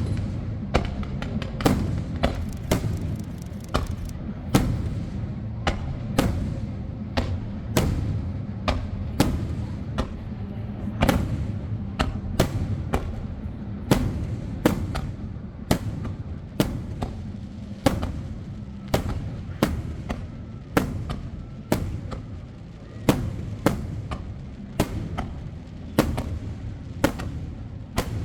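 Fireworks going off in a rapid, irregular string of sharp bangs, about one or two a second, over a continuous low rumble.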